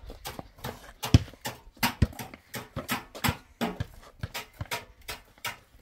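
Irregular knocks and taps, a few each second, the two heaviest about a second apart, just after one and two seconds in.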